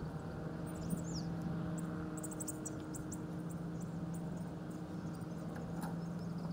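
Outdoor background: a steady low hum, with a few short, high, falling chirps of small birds in the first three seconds or so.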